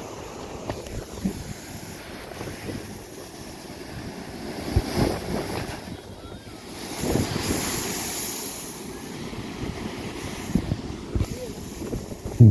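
Sea surging through a rock blowhole, a steady rush of surf that swells twice and becomes a loud hissing gush of spray around the middle as the spout goes up. Wind buffets the microphone.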